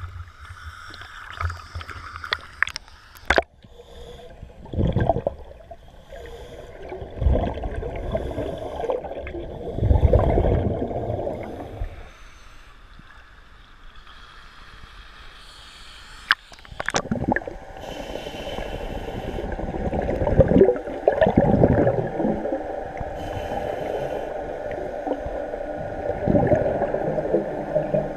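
Water sloshing and gurgling around a camera held at and below the water surface, in irregular surges and gushes.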